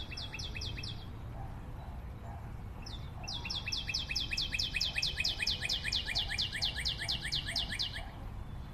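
A bird calling: a short run of quick, high, falling notes, then after a pause of about two seconds a longer run of the same notes, about five a second, for some five seconds.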